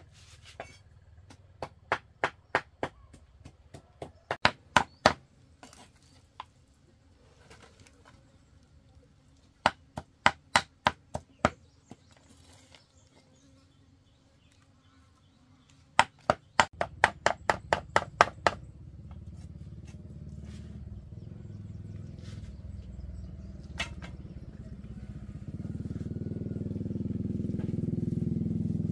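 A knife chopping on a board in three spells of quick, sharp strokes, about three or four a second. From about two-thirds of the way in, a low engine rumble grows steadily louder.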